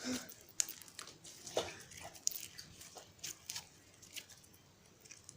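Slime being squeezed and stretched by hand, making scattered soft sticky clicks and squelches that thin out toward the end. The slime was stiff and has been softened so that it now stretches well.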